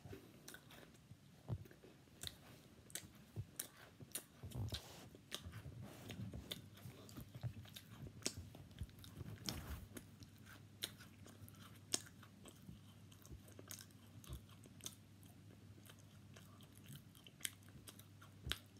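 A person chewing crunchy Café Noir cookies close to the microphone: faint, irregular crunches and mouth clicks throughout.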